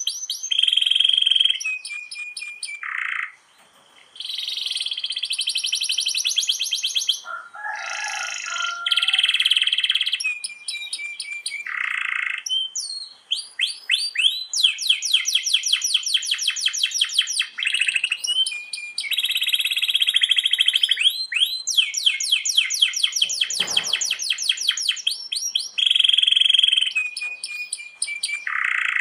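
Canary singing a long, continuous song: long rolls of rapidly repeated notes alternating with fast trills and buzzy phrases, with a brief pause about four seconds in.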